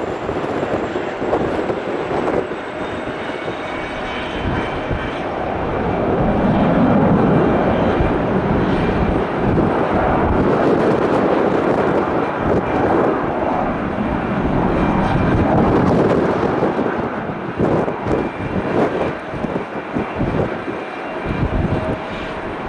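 Jet airliner's engines: a steady noise that swells about five seconds in, holds loud until about sixteen seconds, then eases. A thin high whine rises slightly in pitch during the first few seconds and then holds steady.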